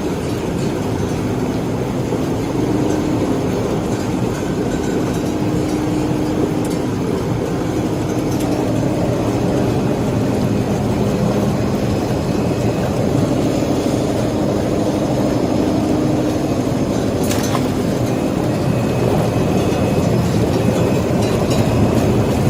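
Poultry processing line machinery running with a steady mechanical noise and low hum, with one sharp click about 17 seconds in.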